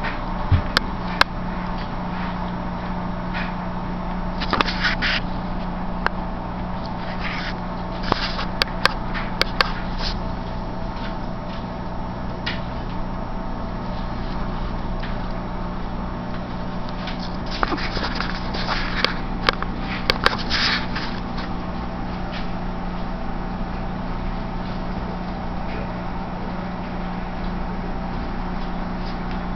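Saint Bernard puppies playing and scuffling on a wooden floor: scattered clicks, scrapes and brief rustling bursts from their paws and tussling, coming in clusters, over a steady low hum.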